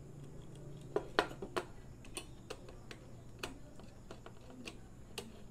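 Faint, irregular light clicks and taps, about eight in all, from stiff wires and tools being handled at a terminal block during electrical wiring, over a faint steady low hum.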